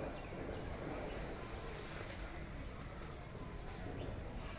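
Outdoor rural ambience: a steady low background noise, with a few short, high bird chirps about three to four seconds in.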